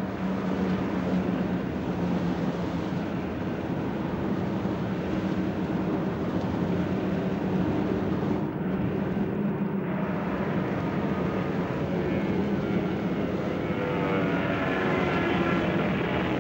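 Steady drone of propeller aircraft engines in flight, a continuous hum over a dense rushing noise.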